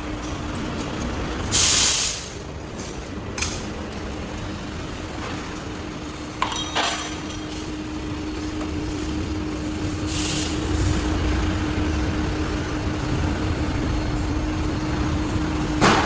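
Workshop machinery running with a steady hum, cut twice by short hisses of air, about one and a half seconds and ten seconds in, with a few sharp metallic clanks in between and near the end.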